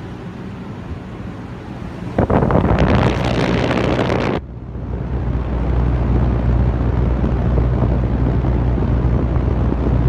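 Saijo Denki air conditioner outdoor condenser unit running: a steady low hum with the air rush of its fan. About two seconds in, a loud gust of wind noise on the microphone lasts about two seconds. After that the hum is louder and deeper as the microphone is close to the fan motor.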